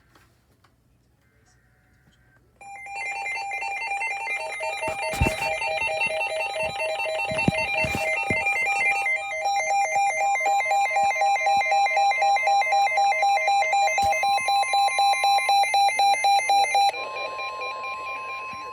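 Electronic emergency-alert tones: a rapid ringing beep of several tones at once starts after a couple of seconds of near quiet, a steady higher tone joins about halfway through, and the pulsing stops shortly before the end while the steady tone carries on.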